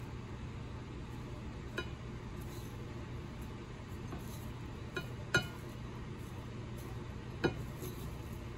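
Kitchen tongs clinking against a ceramic bowl as they roll a mozzarella stick through crushed tortilla chips. There are four sharp clinks, the loudest about five seconds in, over a steady low hum.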